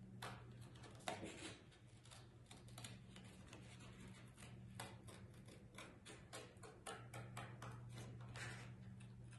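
Scissors snipping through thin cereal-box cardboard: a run of short, irregular snips, sometimes several a second, over a faint steady low hum.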